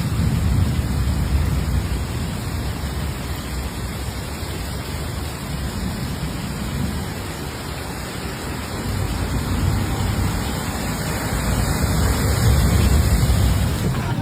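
Storm noise: a steady rushing roar with a heavy low rumble, growing louder near the end.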